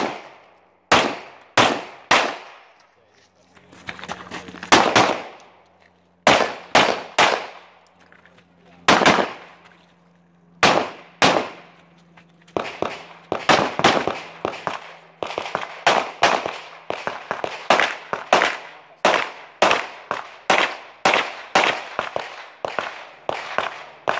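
Pistol shots from an STI DVC Open 9mm, in pairs with pauses between them over the first half, then fast strings over the second half. Steel popper targets clang when hit.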